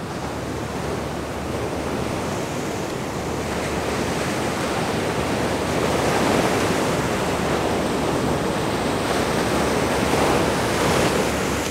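Ocean surf breaking and washing up the beach, a steady rushing that swells now and then, with wind buffeting the microphone.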